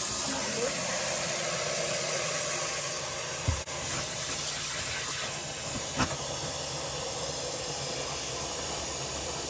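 Water from a kitchen tap running steadily into a plastic bowl, filling it and dissolving the salt in the bottom into a brine. Two light knocks come about three and a half and six seconds in.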